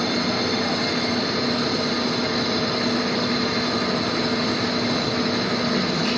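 Lathe running steadily with a brake disc spinning on its spindle: a constant machine hum with a steady high hiss.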